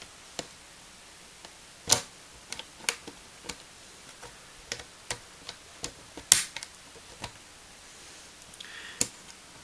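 Irregular light clicks and taps of a replacement laptop LCD panel being handled and lined up in the laptop's lid, with two louder knocks about two and six seconds in.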